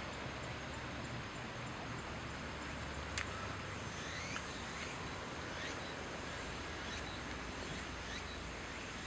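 Steady background rush with a handful of short, high bird calls that slide in pitch, starting about four seconds in, and a single sharp click just before them.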